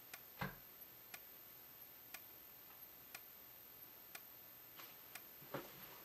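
Faint, sharp ticks about once a second from an Edwards Integrity 15/75 candela xenon strobe flashing. About half a second in there is a louder click, the room light switch being turned off.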